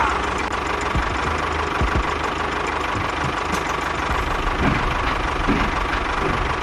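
A small motor running steadily, with a faint even whine over a low rumble.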